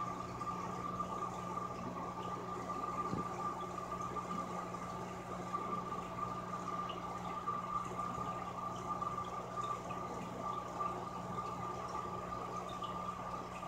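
Steady hum of running aquarium equipment, with a constant high whine over a low drone and a faint wash of bubbling water.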